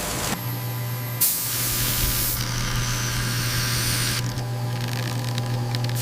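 Machine noise: a steady hiss over a low hum, changing abruptly several times about a second or two apart.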